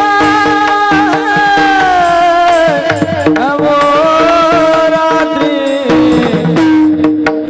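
Varkari kirtan singing: a man's voice holding long notes that slide in pitch, over a steady drone and hand-drum beats.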